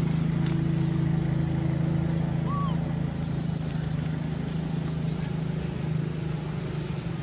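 Steady low hum of an engine running at idle, with faint high hissing now and then.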